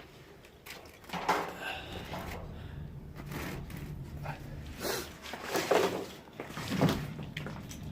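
Several short rustling and handling noises over a steady low hum.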